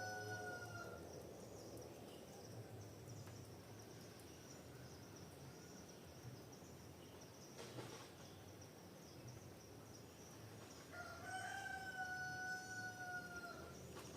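Rooster crowing twice, long drawn-out calls, the first tailing off about a second in and the second starting near the end, over a steady high-pitched insect drone.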